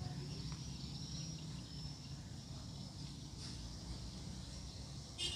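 Quiet outdoor ambience: a steady high drone with a low steady hum beneath it, and a brief sharp chirp near the end.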